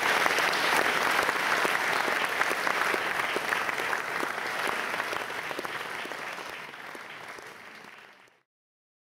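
Audience applauding at the end of a lecture, a dense steady clapping that gradually fades and cuts off to silence about eight seconds in.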